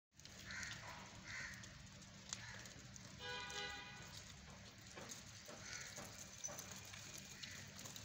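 A goat bleats once, a little over three seconds in, lasting under a second. Faint hoof clicks from goats walking on brick paving sound around it.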